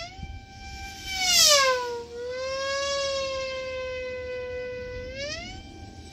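F3E electric pylon-racing model aircraft's motor and propeller whining as it laps the course. The pitch rises as it comes on, and about a second and a half in it passes close, loudest, with the pitch sliding down as it goes away; near the end the pitch climbs again as it comes round for the next pass.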